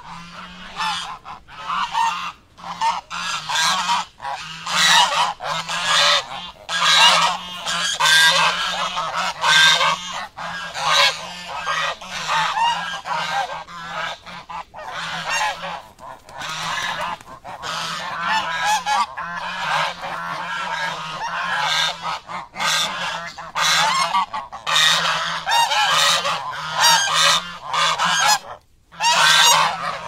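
A flock of birds honking harshly, many calls overlapping almost without pause, with a brief break near the end.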